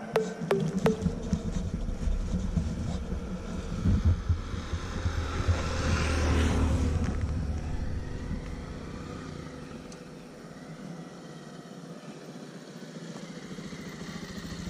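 Roadside traffic on a highway. A few sharp clicks sound at the start. A passing vehicle swells to its loudest about six seconds in and fades, then a motorcycle engine grows louder near the end as it approaches.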